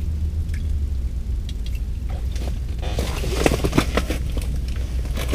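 A hooked catfish splashing and thrashing in the ice-fishing hole as it is drawn up, starting about three seconds in. Under it runs a steady low rumble.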